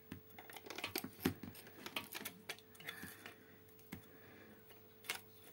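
Small irregular clicks and snaps of pliers working at the clear plastic bottom of a bucket, pinching and pulling off leftover plastic bits around freshly made drainage holes.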